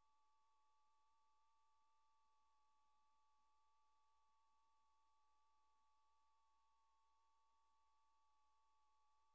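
Near silence: only two faint, steady electronic tones with no change, and no sound from the game itself.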